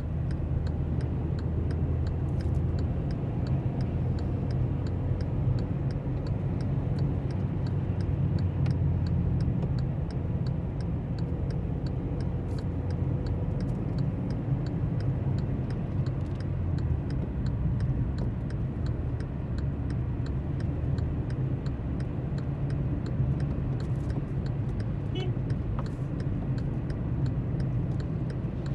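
Car driving: a steady low engine and road rumble, with a light regular ticking about twice a second.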